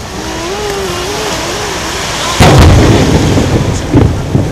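Fireworks shells bursting: a loud boom with a rolling tail about halfway through, then a second, shorter boom near the end.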